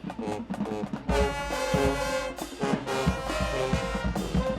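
Marching band brass section and drumline playing: about a second of short punched notes and drum hits, then a loud, full brass chord held over repeated bass drum strokes.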